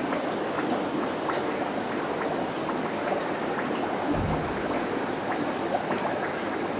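Steady rushing, bubbling water noise from the aquarium's water circulation, with a brief low thump about four seconds in.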